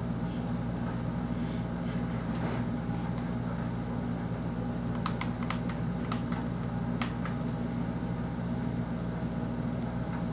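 A run of sharp clicks and taps from handling the sniper rifle's parts and packaging, bunched about halfway through, over a steady low hum.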